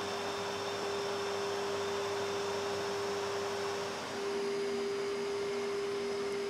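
Steady airliner cockpit noise in flight: a hiss of airflow under a constant electrical hum, with a brief dip about four seconds in.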